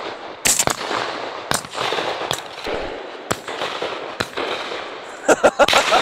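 Shotguns firing at doves from several hunters: about ten sharp shots at uneven intervals, some louder and some fainter, with a quick cluster of shots near the end.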